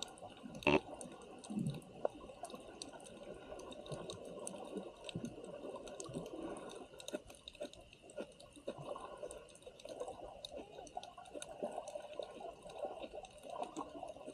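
Water sloshing and bubbling, with many small clicks and a sharp knock near the start.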